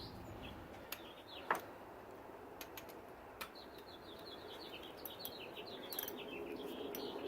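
A small bird chirping a quick run of short, high notes, plainest in the second half, over a steady low background, with a few faint sharp clicks.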